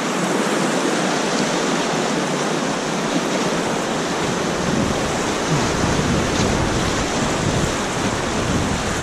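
Whitewater of the Rio Grande's class III Bridge Rapid rushing steadily all around, heard from water level in the middle of the rapid.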